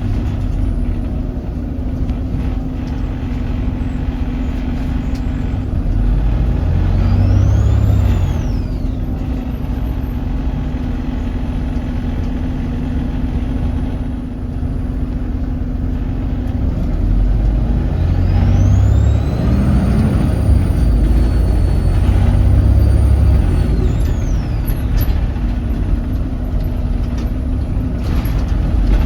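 Volvo B7RLE bus's diesel engine pulling away twice, each time with a high turbocharger whistle that rises in pitch and then falls away as the engine eases off. The turbo's whistle is unusually prominent.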